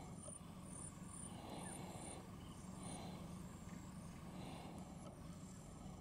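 Faint outdoor ambience: a steady low hum under a steady high-pitched insect buzz, with a few soft calls.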